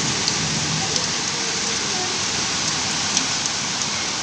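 Heavy rain falling steadily, a dense even hiss with scattered sharper ticks of drops striking close by.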